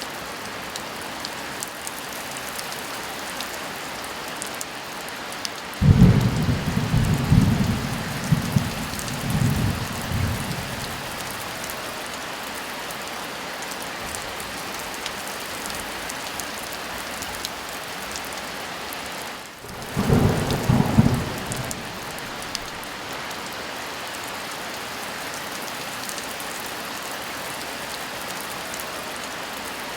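Heavy rain falling steadily with thunder: a long rolling rumble about six seconds in, and a second, shorter crack and rumble about twenty seconds in.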